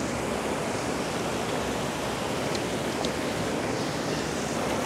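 Steady rush of a mountain stream's water pouring over a small rocky cascade, with two faint ticks about halfway through.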